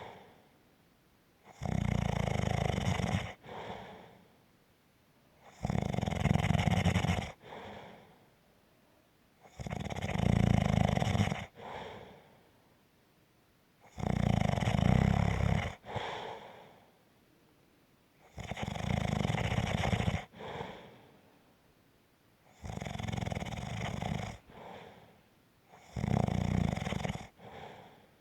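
Slow, regular snoring: about seven loud rattling snores roughly four seconds apart, each followed by a shorter, fainter sound, with quiet pauses between.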